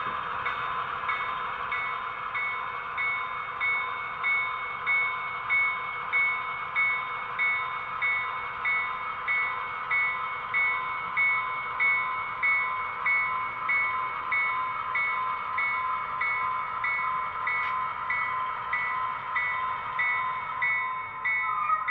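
Sound-equipped model Conrail diesel locomotive moving slowly. Its speaker plays a diesel engine running with the locomotive bell ringing steadily, about two rings a second.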